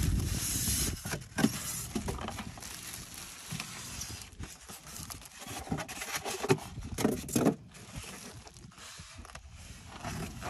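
Plastic bag wrapping crinkling and foam packing blocks rubbing and creaking as a boxed RC boat hull is handled and lifted out of its cardboard box, in irregular rustles and clicks. A low rumble in the first second.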